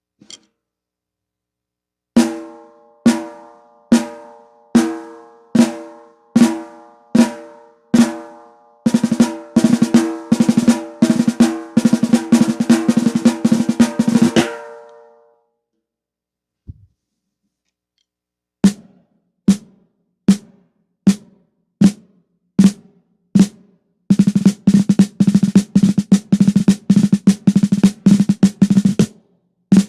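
Entry-level RMV snare drum, tuned by DrumDial to 60 on the batter head and 80 on the resonant head, played solo. It starts with single strokes a little over one a second, then a fast roll that rings out. After a pause there is another run of single strokes and a longer fast roll.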